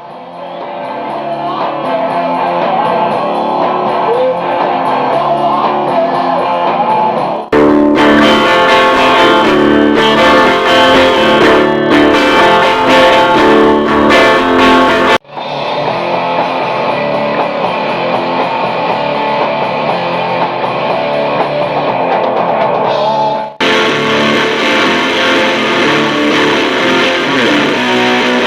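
Electric guitar playing rock riffs in a grunge tone, in four separate clips that cut abruptly about 7, 15 and 23 seconds in; the second clip is louder and brighter.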